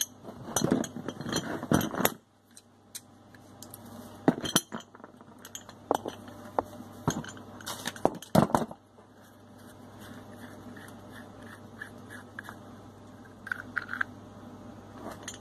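Metal parts of a chrome single-lever mixer tap clinking and knocking as the tap body and its pieces are handled and a small part is fitted into the body. The clinks come scattered, the loudest about four and eight seconds in.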